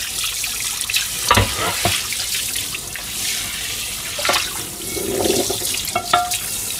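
Kitchen tap running into a stainless steel sink as a frying pan is rinsed and rubbed by hand under the stream, with a few short knocks of the pan against the sink.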